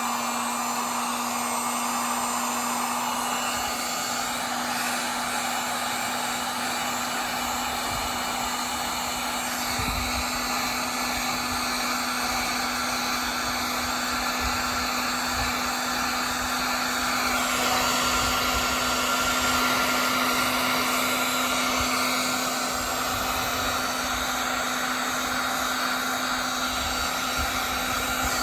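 Electric hot-air blower, such as a heat gun, running steadily with a constant hum under its hiss, its sound shifting a little about two-thirds of the way through; typical of heating a Kydex sheet to soften it for forming a sheath.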